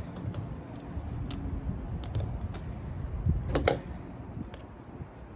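Handling noise from a refrigerator compressor's motor parts and copper windings being worked by hand: scattered small metallic clicks and clinks, with a louder clatter about three and a half seconds in.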